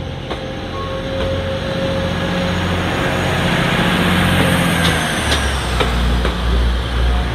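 A Class 185 diesel multiple unit's Cummins diesel engines working under power as the train pulls out of the station, growing louder as it passes close by. The engine note drops deeper about five seconds in, and a few sharp clicks of wheels on the rails follow.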